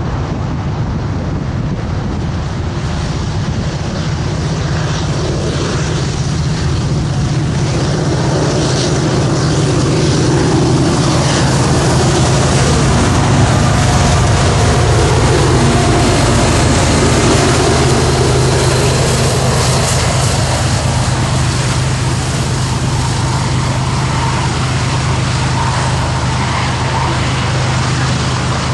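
A diesel freight train passing close by: the BNSF SD70MAC diesel-electric locomotive's engine drones, growing louder as it approaches and goes by about halfway through. It is followed by the steady rumble of coal hopper cars rolling over the rails.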